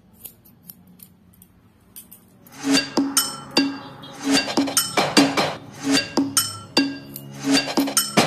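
Background music: after a quiet opening with a few faint clicks, a track with a sharp, regular beat and plucked notes comes in about two and a half seconds in, at about two beats a second.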